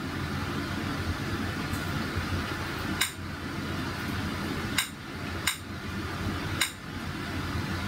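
Four short sharp clicks, spaced irregularly over a few seconds, as the Kodi home menu is navigated, over a steady low hum and hiss.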